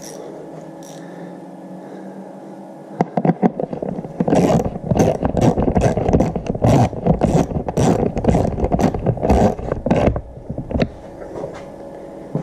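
Socket ratchet clicking in quick, repeated strokes as a bolt is run in on a motorcycle. The clicking starts about three seconds in and stops a couple of seconds before the end.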